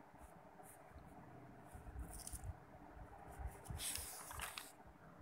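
Quiet room tone in a small room: a faint steady hum with a few soft, brief noises, the most noticeable about four seconds in.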